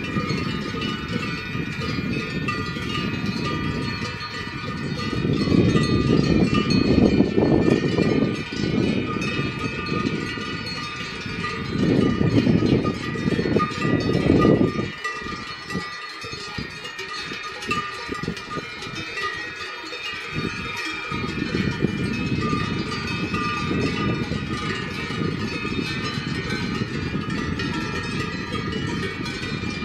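Many cowbells on grazing cattle ringing continuously, a jangle of overlapping bell tones. Under them a low rumble swells twice in the first half and nearly drops away for a few seconds past the middle.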